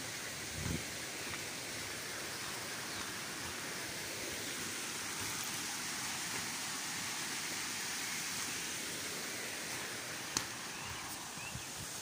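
Steady rush of a small waterfall and stream, swelling a little midway. A few footsteps near the start and a single sharp click about ten seconds in.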